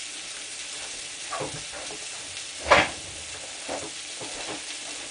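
Ribeye steaks sizzling steadily in a hot frying pan with butter. A single short, louder noise comes about halfway through.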